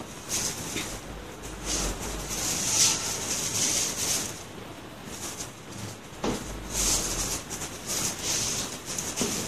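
A small rubber-bladed squeegee wiper swishes in repeated quick strokes across the glass of a solar panel, spreading a thin sealing coat over the cracks. There are a couple of light knocks, one past the middle and one near the end.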